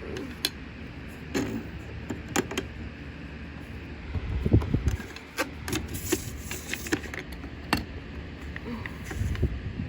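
Scattered clicks, knocks and light clatter of a portable record player being handled between records, over a steady fan hum.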